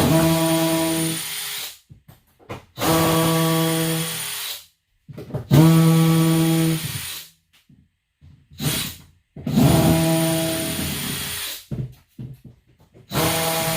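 Power drill run in five separate bursts of about two seconds each, a steady whir that slows and fades at the end of each burst, while plywood benchwork is being taken apart.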